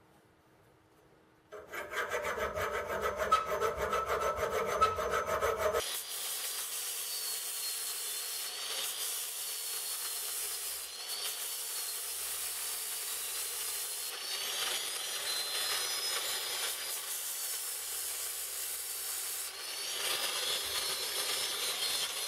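About a second and a half in, a rough rasping with fast even strokes on steel for about four seconds. Then an angle grinder's abrasive disc grinds the rusted steel mortar part held in a vise, a steady high hiss.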